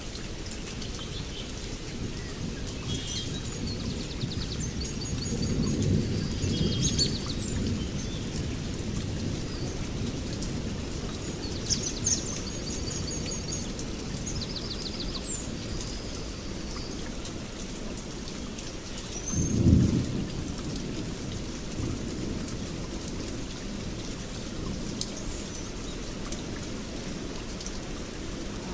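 Steady rain with two low rumbles, the stronger about twenty seconds in, and short high chirps in the first half.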